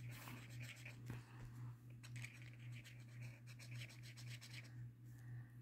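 Felt-tip illustration marker scribbling on sketchbook paper in quick back-and-forth strokes, colouring in a small area, over a steady low hum. The scribbling stops about a second before the end.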